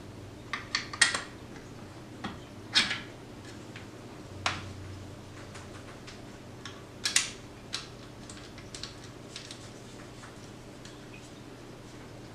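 Metal parts of a bike repair stand clinking and knocking as the bike-holding clamp piece is lined up on the stand and its pin fitted through the hole. It is a string of irregular sharp clicks, the loudest about a second in, near three seconds, and about seven seconds in.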